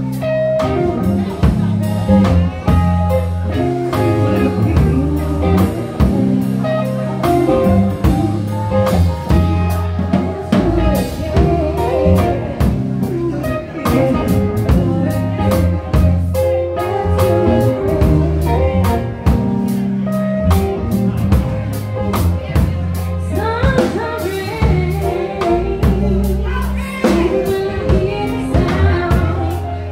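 A live band playing: a woman sings lead over electric guitar, electric bass and a drum kit keeping a steady beat.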